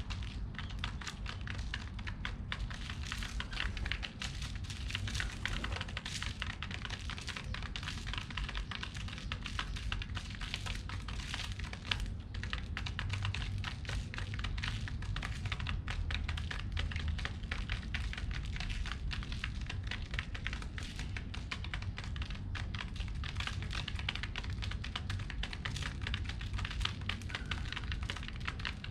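Pigeons pecking at scattered seeds, a dense run of quick, irregular taps and clicks.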